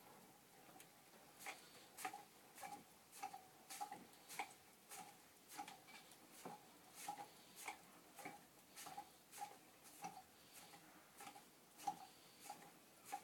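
Foot-driven potter's wheel turning, with a short ticking squeak a little under twice a second as it goes round.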